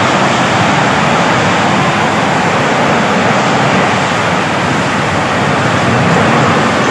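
Tornado wind making a loud, steady rushing noise with no let-up.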